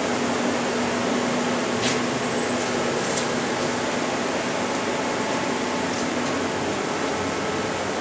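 Steady whirring hum of running machinery or fans, with one constant low tone in it. A few faint clicks come about two and three seconds in.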